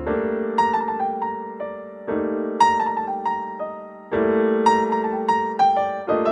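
Slow, calm piano music: a held chord struck about every two seconds with a few short higher melody notes over each.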